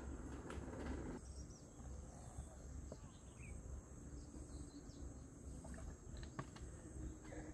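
Quiet outdoor ambience: faint bird chirps and a steady insect hiss over a low rumble, with a few light clicks about six seconds in.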